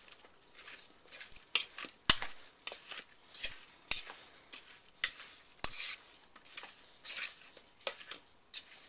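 Cauliflower florets being stirred and tossed through a thick flour batter with a utensil, giving irregular clinks and short wet scrapes against the dish, about one or two a second.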